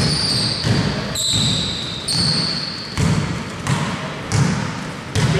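A basketball being dribbled on a hardwood court, a bounce about every three quarters of a second, with short high squeaks in between.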